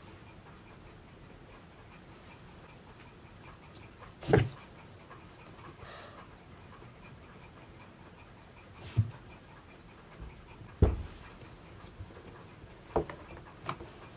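Cats moving about a cardboard box on a wooden floor: five scattered soft knocks and taps on the cardboard, the loudest about four seconds in and two close together near the end as a cat climbs onto the box.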